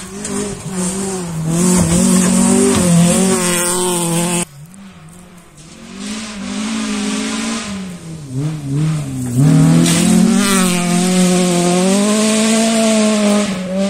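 Rally car engines at full throttle on a gravel stage, the pitch rising and dropping as the cars change gear. The sound cuts off abruptly about four and a half seconds in. Another rally car then approaches, its engine growing loud and high-revving through its gear changes.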